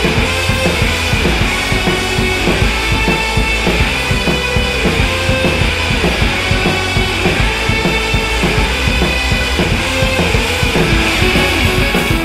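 Rock music with a drum kit playing a steady beat.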